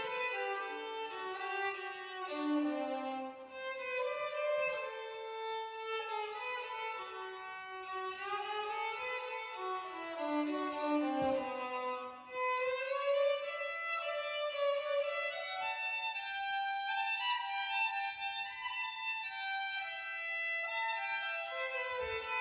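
Violin playing a bowed melody that moves up and down through low and high notes, with a short break about twelve seconds in.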